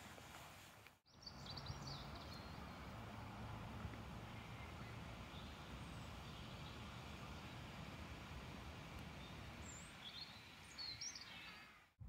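Faint steady outdoor background noise, with a few short bird chirps about a second in and again near the end.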